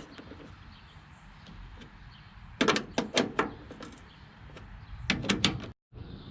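Two quick clusters of sharp knocks and clacks, about four in each, about three and five seconds in.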